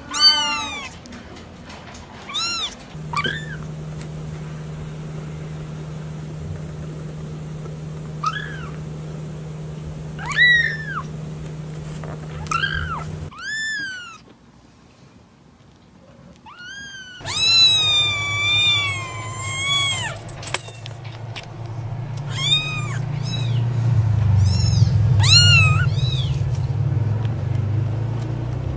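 Very young kittens mewing: many short, high-pitched mews that rise and fall in pitch, with a longer wavering cry of about three seconds just past the middle and a few seconds of near quiet before it.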